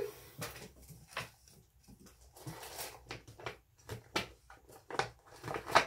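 Rummaging and handling packaging and bags: irregular rustles, crinkles and light knocks, with a sharper knock near the end.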